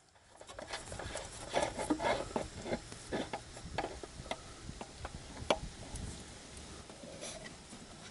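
A gloved hand working the oil filter housing loose among the engine parts: a run of irregular small clicks, taps and rubbing, with the sharpest click about five seconds in, easing to softer rubbing near the end.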